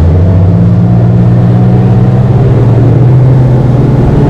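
Boat motor running steadily under way, its pitch creeping slightly up.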